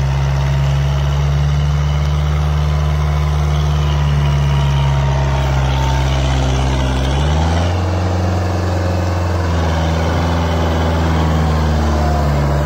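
Kubota MU4501 tractor's four-cylinder diesel engine running steadily and loud under heavy load, dragging a rotavator through tilled soil hard enough to lift the tractor's front end. Its note changes about seven seconds in.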